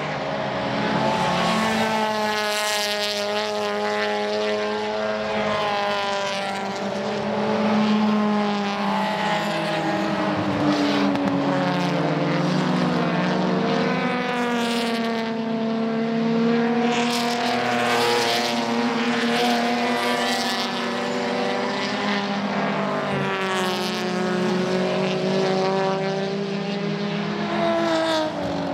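Several circuit race cars running hard past one after another, their engine and exhaust notes overlapping and rising and falling in pitch as they accelerate and lift through the corner.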